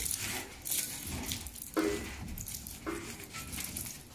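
Loose cardboard jigsaw puzzle pieces rattling and scraping as a hand sweeps them across and off the puzzle die's plate, in several short bursts.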